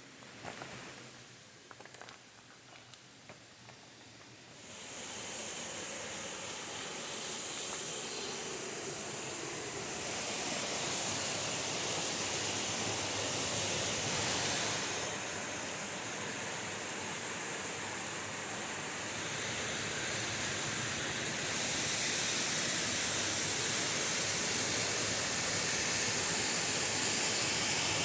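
Rushing water of a waterfall in a gorge: a steady rush of noise that comes in about five seconds in and grows louder in steps near ten and twenty-two seconds, after a few quiet seconds with faint ticks.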